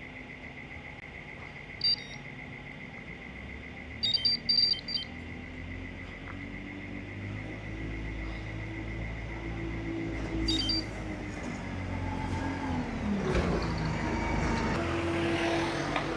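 Road traffic: a motor vehicle's engine rumble builds over the second half, with a falling pitch as a vehicle passes about thirteen seconds in. A few short electronic beeps sound early on and around ten seconds in, over a faint steady high tone.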